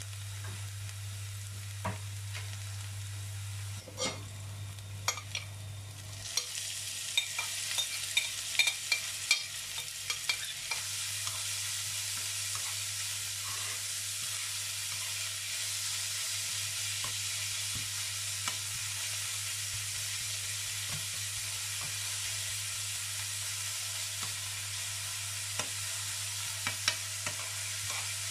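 Ground meat and chopped onions sizzling in a non-stick frying pan, stirred with a metal spoon that clicks and scrapes against the pan. The sizzle grows louder about six seconds in, with the spoon's clicks thickest over the next few seconds. A low hum sits under the first few seconds.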